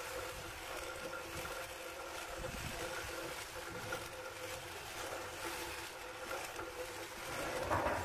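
Electric sheep-shearing handpiece running with a steady motor hum as its cutters work through a sheep's fleece, briefly louder near the end.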